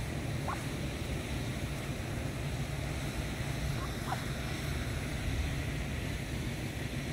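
Wind rumbling on the microphone, with two brief rising peeps from Muscovy ducklings, about half a second in and about four seconds in.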